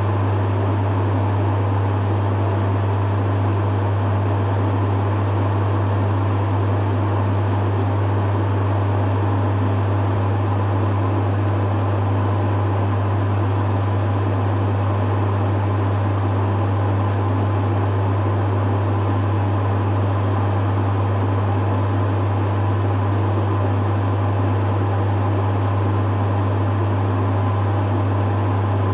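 Dehumidifier running steadily: a strong, even low hum with a constant airy whir over it.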